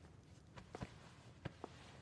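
Soft footsteps: a few light taps over a faint, quiet room hush.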